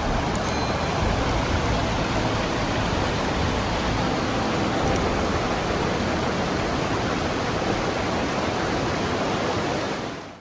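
Mountain stream rushing over rocks: a steady rush of water that fades out near the end.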